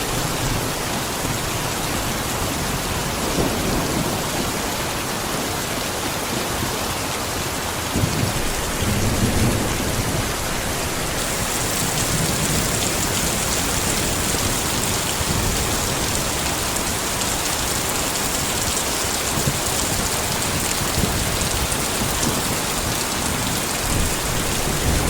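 Heavy rain falling steadily on surfaces, with low thunder rumbling now and then. The rain's hiss grows brighter and heavier partway through.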